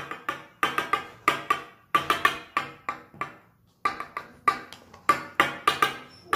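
Background music: a quick tune of short, struck or plucked notes that die away fast, with a brief pause about three and a half seconds in.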